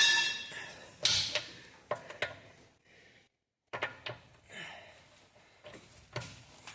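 Metal tools clanking and knocking while working on seized wheel bolts: a ringing metallic clank at the start, a heavy knock about a second in, then scattered lighter clicks and knocks, broken by a brief dead silence in the middle.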